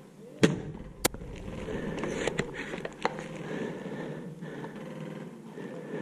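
Airsoft gunfire: a sharp shot about half a second in, a second sharp crack about half a second later, then a few lighter clicks.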